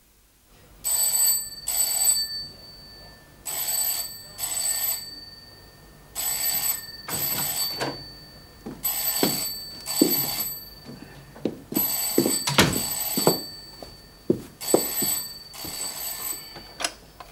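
Desk telephone bell ringing in pairs of rings, each pair repeating about every three seconds, six times over, then stopping as the handset is picked up. From about halfway, knocks and thuds sound between the rings.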